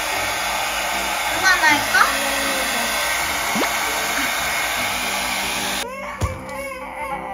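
Small handheld hair dryer blowing steadily, then switched off suddenly about six seconds in.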